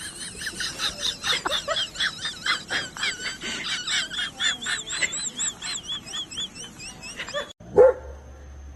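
Dog yipping rapidly and shrilly, a long unbroken run of about three to four high-pitched rising-and-falling yips a second, cutting off abruptly near the end. A single short, louder sound follows just after.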